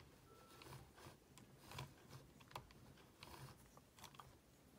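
Near silence with faint, scattered light clicks and ticks from an RC car's wheel and drivetrain being turned by hand while tire grip liquid is swabbed onto the tire.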